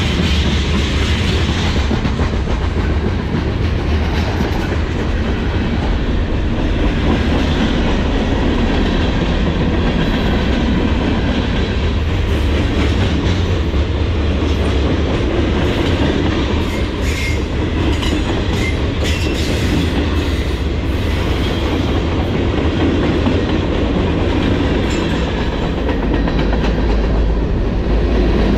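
Norfolk Southern freight train's cars rolling on the rails: a loud, steady rumble with wheels clattering over the track.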